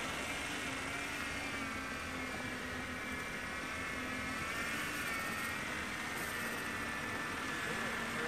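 A 3D-printed remote-control mini snow blower running and throwing snow, with a steady motor whine whose pitch wavers slightly as it works through the snow.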